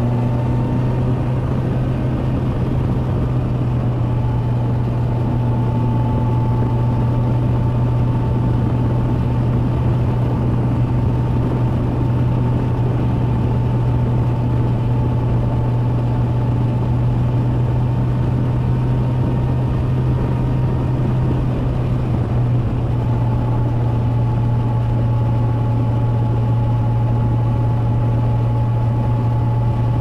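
2021 Kawasaki Versys 1000 SE's 1,043 cc liquid-cooled inline-four engine running steadily as the motorcycle cruises at about 90 km/h. The pitch rises slightly at the very start, then holds nearly constant.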